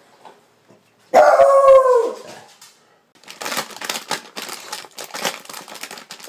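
A puggle gives one long howl about a second in, falling in pitch at its end. From about three seconds in, a dog tears and crinkles through paper wrapping, a steady irregular crackling.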